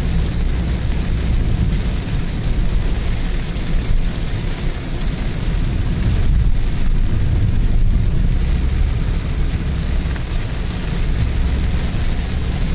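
Inside a car driving on a wet highway in heavy rain: a steady low rumble of the car and its tyres on the wet road, with a hiss of rain on the windshield and body.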